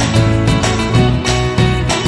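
Background music: an upbeat tune on plucked or strummed strings, like an acoustic guitar, with a steady beat.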